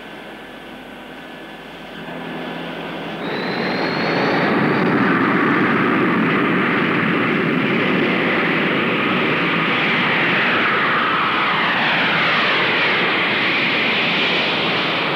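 Jet engines of the Boeing 747 carrier aircraft at takeoff power. The sound swells sharply about three seconds in, with a brief rising whine, then holds loud and steady.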